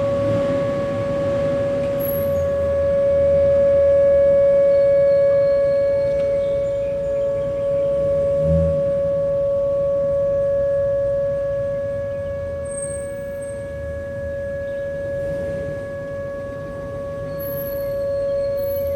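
Distant Whelen outdoor warning sirens sounding a steady tone, slowly swelling and fading in loudness.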